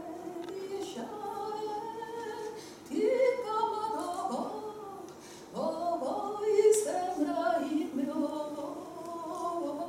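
Unaccompanied female singing in held, sustained notes, with louder phrases coming in about three seconds in and again near six seconds.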